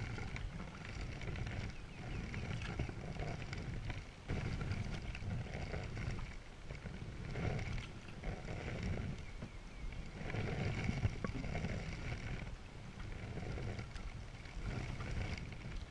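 Paddle strokes and water splashing and lapping along the hull of a Selway Fisher Wren canoe, swelling and fading about every two seconds, over a low rumble of wind on the microphone.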